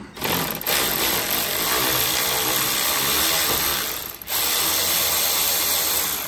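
Cordless power ratchet with an extension running to back out a T30 Torx screw holding a headlight: one run of about four seconds, a brief stop, then a second run of about two seconds.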